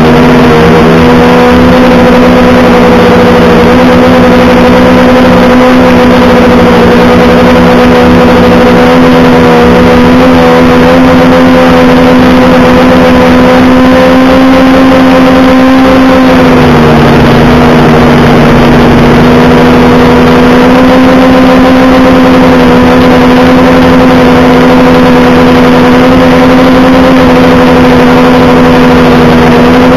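An engine running at a steady speed, its pitch dropping slightly about sixteen seconds in and then holding steady.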